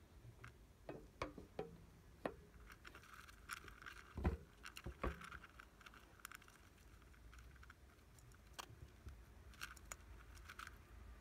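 Dwarf hamster rummaging through dry seed-and-vegetable food in a plastic bowl: faint rustling with scattered small clicks and crackles, and a louder knock about four seconds in.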